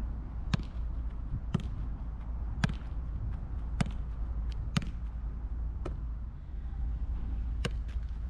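A football being juggled with the inside of the right foot: six dull thuds about a second apart, then a short pause and a few quicker knocks of the ball near the end. A steady low rumble runs underneath.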